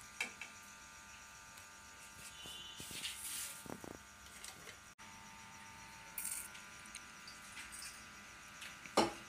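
Faint handling sounds of fish being washed in a steel bowl: small scattered clinks and rubbing, with one sharp knock near the end.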